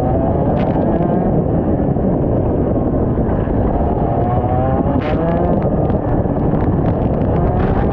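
IAME X30 125cc two-stroke kart engine running on the track, its pitch rising and falling several times as it revs up and backs off, under a heavy rumble of wind on the microphone.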